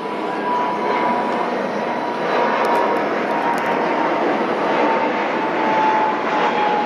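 Fuji Dream Airlines Embraer regional jet passing low overhead on its landing approach. Its twin turbofan engines give a loud, steady rushing noise with a whine that slides slowly down in pitch as it goes by.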